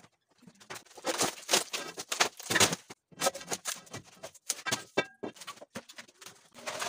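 Termite-eaten plywood being pried and scraped off a wall with a metal bar: repeated scraping and knocking, with broken pieces of crumbling wood clattering.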